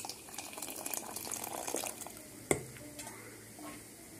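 Starchy cooking water being poured off boiled biryani rice into a pot, a splashing pour that trails off after about two seconds, with a sharp knock of the pot about two and a half seconds in.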